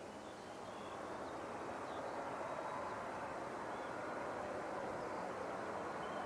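Twin turbofan engines (Pratt & Whitney Canada PW535) of a Cessna Citation Encore+ business jet running as it rolls down the runway. The engine noise is a steady rush that grows louder over the first couple of seconds. Faint bird chirps sound above it.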